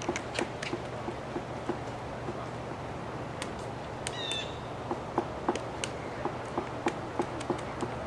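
Pileated woodpecker pecking at a tree trunk: irregular knocks, coming louder and more regularly, about three a second, in the last three seconds. A brief bird call about four seconds in.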